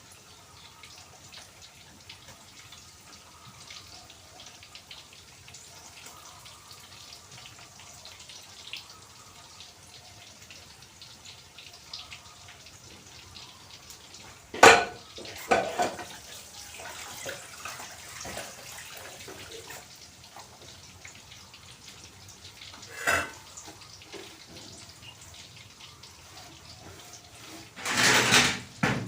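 Home kitchen sounds: a low background for a while, then sharp clanks of pots and utensils about halfway through and again later, and a short loud rush of noise near the end.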